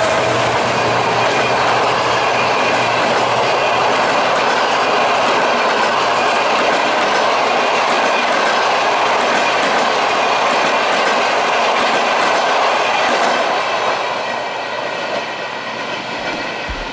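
Passenger train's coaches passing close by at speed: a loud, steady noise of wheels running on the rails. It fades from about 14 seconds in as the train draws away.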